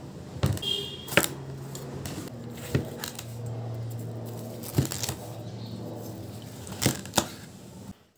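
Kitchen knife cutting through a ripe cucumber and knocking on a wooden cutting board: about six sharp, irregular knocks.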